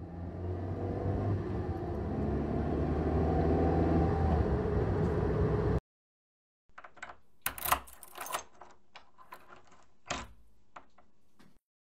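A car driving, growing louder over about six seconds and cutting off suddenly. After a short gap, a key goes into a door lock and is turned: a run of metallic clicks and key jangles.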